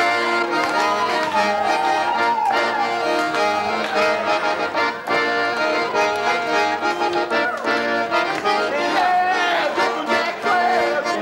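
Accordion-led band music with sustained chords, a gliding melody line and a steady beat.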